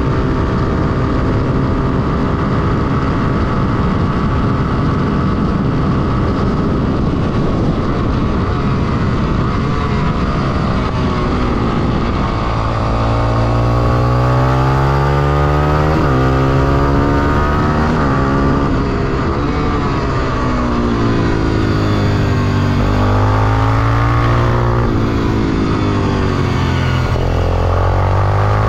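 Honda XR250 Tornado's single-cylinder four-stroke engine heard onboard at speed: first a steady high-revving drone with wind rush on the straight, then from about halfway the revs rise and fall several times through the corners.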